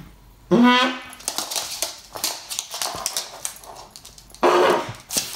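English Bull Terrier cross barking twice: a short pitched bark about half a second in and a rougher, noisier one near the end. Between the barks, light clicks and scrabbling of claws on a wooden floor.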